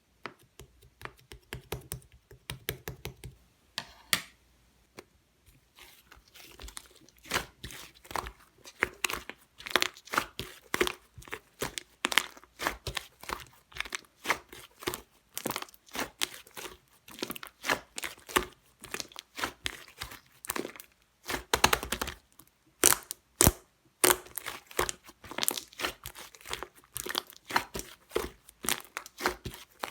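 A tangerine being peeled by hand: many short, sharp tearing and crackling sounds as the peel comes away from the fruit, sparse at first and then coming thick and fast.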